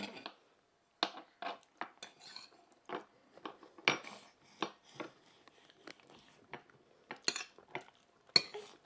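A baby's hands tapping and scraping on a plate as he grabs at loose cooked rice: irregular light clicks and taps, with one sharper knock a little after eight seconds in.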